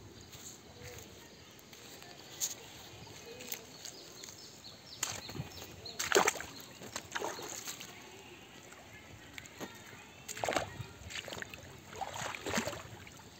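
Shallow rocky stream trickling steadily over stones, with a few short, irregular louder noises, the loudest about six seconds in.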